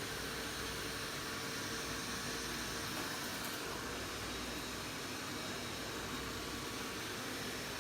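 Robot vacuum running: a steady, even whir with a faint steady tone under it.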